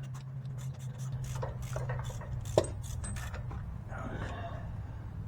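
Hand tools and bolts clinking and scraping while a transmission bell housing bolt is fitted, with one sharp click about two and a half seconds in, over a steady low hum.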